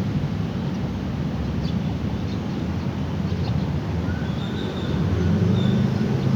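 Steady low outdoor rumble, with a few faint high chirps about four to six seconds in.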